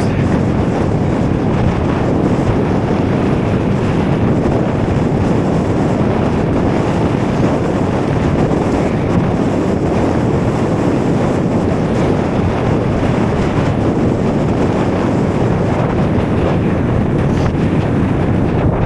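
Strong wind buffeting the microphone: a loud, steady rumbling rush with no letup.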